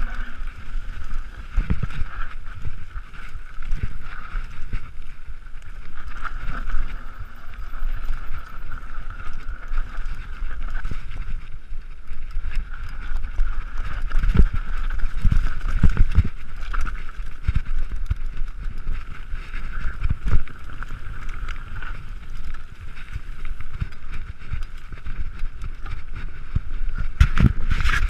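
Mountain bike riding fast down a rough forest trail: wind rumbles on the microphone, the wheels thump and rattle irregularly over roots and rocks, and a steady high buzz runs underneath. The hardest knocks come about halfway through and again near the end.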